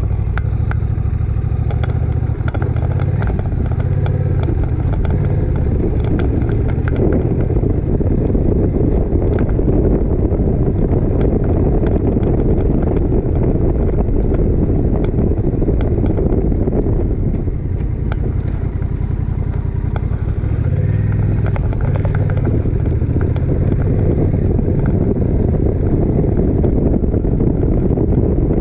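Motorcycle engine running as the bike rides along at about 45 km/h, with wind noise on the microphone; the sound eases briefly about 17 seconds in.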